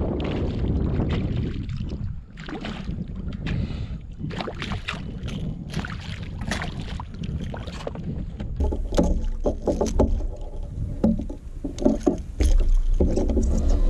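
Water splashing and sloshing against the side of a kayak as a caught fish is handled at the surface, in short irregular splashes, with wind rumbling on the microphone throughout. The splashing grows louder and busier about two-thirds of the way through.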